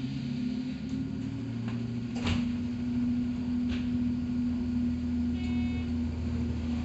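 Hakone Tozan Railway 2000-series resistor-control electric train heard from aboard: a steady low electrical hum with a few sharp clicks, and a brief high beep a little past the middle.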